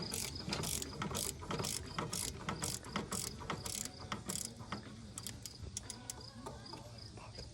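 Socket ratchet clicking in quick strokes while loosening the exhaust header bolts, about two or three clicks a second, thinning out after about four and a half seconds.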